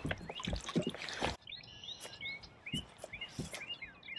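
Water splashing beside a kayak for about the first second and a half as a released bass swims off. After that come small birds chirping, in many short, repeated falling notes.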